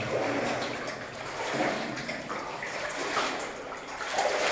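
Water sloshing and splashing in an old mine tunnel, coming and going in uneven swells.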